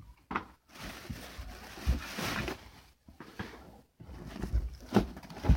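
Rustling of packaging and several knocks as fireworks are picked up and handled, the loudest knock near the end.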